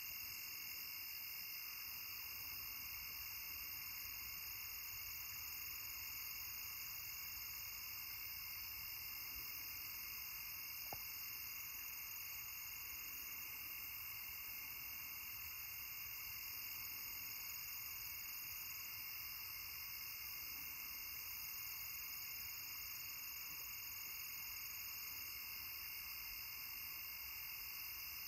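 Steady night chorus of crickets and other insects: a faint, unbroken high-pitched drone at several pitches at once, holding even throughout.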